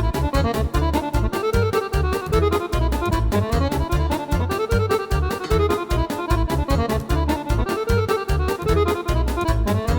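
Yamaha arranger keyboard playing a style demo: drums, bass and a melodic lead with a steady beat.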